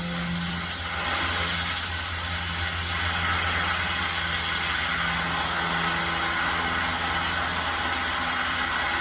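Oxy-acetylene torch flame burning steadily, a constant hiss with a low hum underneath, as it heats copper pipes toward red heat for brazing.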